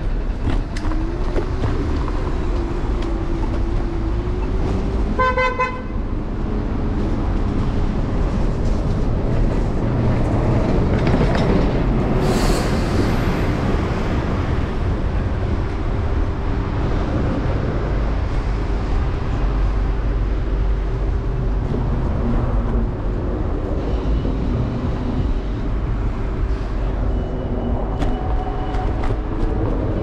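Electric scooter riding through city street traffic: a steady low rumble of wind and road noise with a faint steady whine underneath. A short vehicle-horn toot sounds about five seconds in, and a brief hiss about twelve seconds in.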